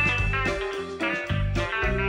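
Instrumental background music led by guitar.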